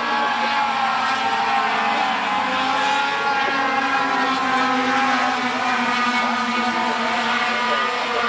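Several race-truck engines running together in a steady drone, holding an even pitch without revving.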